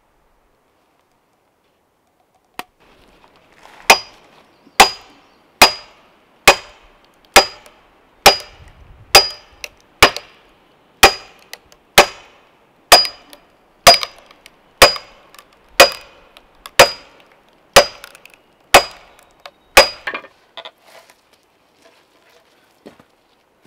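Sledgehammer driving a steel wedge to split a log lengthwise: about eighteen steady blows, roughly one a second, each with a short metallic ring. A few lighter knocks follow near the end.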